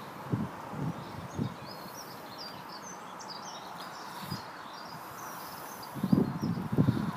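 Outdoor ambience: a small bird twitters in short high chirps through the middle, over a steady background hiss, while gusts of wind buffet the microphone in low rumbles, strongest about six to seven seconds in.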